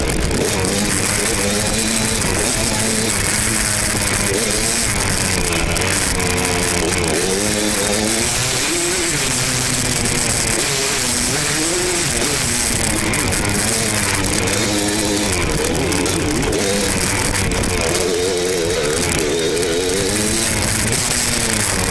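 Two-stroke Yamaha YZ dirt bike engine revving up and down as it is ridden, its pitch rising and falling again and again every second or two.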